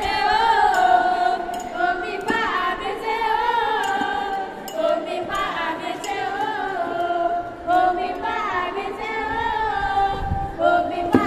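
A group of girls singing a cheer song together in unison, with a few drum knocks near the end.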